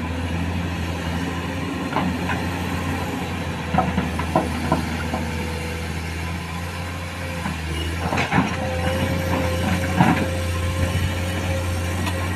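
Komatsu PC210 hydraulic excavator's diesel engine running steadily under load as it digs into a pile of broken rock, with scattered knocks and clatters of rock against the steel bucket, the loudest about ten seconds in. A steady whine joins about eight seconds in.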